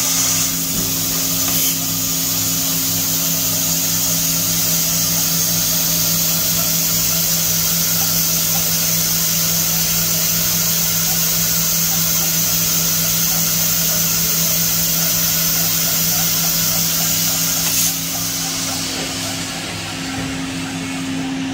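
Roku-Roku Sanyo HC-658 high-speed vertical machining center running, its spindle giving a steady high-pitched whine over a low machine hum that pulses about twice a second. The whine stops abruptly about 18 seconds in while the hum carries on.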